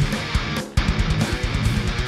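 High-gain electric guitar riff with palm-muted chugs over a kick drum, played through a Horizon Devices Precision Drive overdrive ahead of the amp. The chugs sound airy and less driving. The riff breaks off briefly just under a second in.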